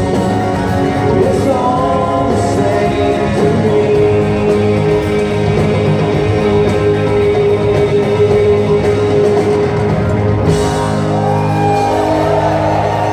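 Live rock band playing with singing: electric guitars, bass, drums and vocals, with one long note held through the middle.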